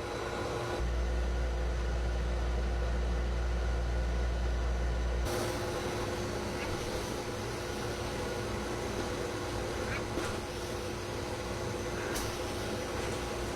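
Pet blow dryer running: a steady rush of air over a steady motor hum. A deep low rumble joins it from about a second in until about five seconds in.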